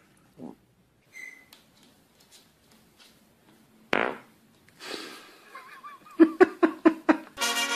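A loud sudden noise, then a quick run of about seven short buzzy fart sounds near the end, several a second.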